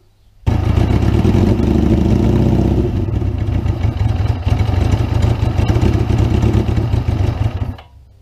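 Suzuki GS550's air-cooled inline-four engine running steadily. It cuts in suddenly about half a second in and cuts off abruptly just before the end. Its air-fuel mixture is still to be fine-tuned.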